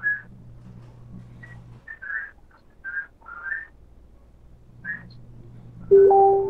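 A run of short, high whistle-like chirps at irregular spacing, over a faint low hum. Near the end comes a louder steady whistle-like tone lasting about half a second.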